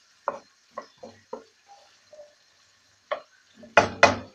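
Wooden spatula stirring olives and garlic in a nonstick wok: a string of short scrapes and knocks on the pan, the two loudest close together near the end.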